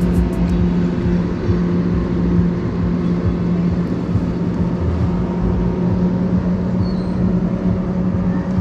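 Steady low hum of a motor at one unchanging pitch, over a low rumble.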